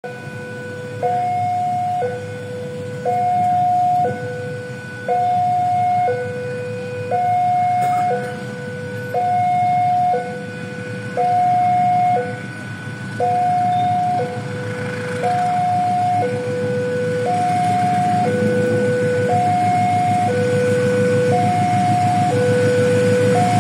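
Railway level-crossing warning alarm sounding its two-tone signal, a higher and a lower tone alternating about once a second, the warning that a train is approaching. Under it a low rumble grows louder through the second half.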